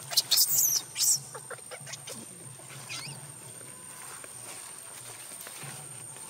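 Newborn macaque squealing: several high, wavering cries in the first second or so, then one more about three seconds in.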